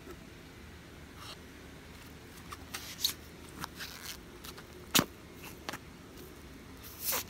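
Brown clay-mixed slime being squished and stretched by hand, giving scattered sharp pops and clicks, the loudest about five seconds in, over a faint hiss.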